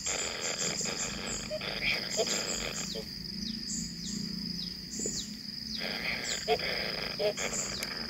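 Kingfisher nestlings begging for food with harsh, rasping calls. They go quieter for a few seconds in the middle, then start again.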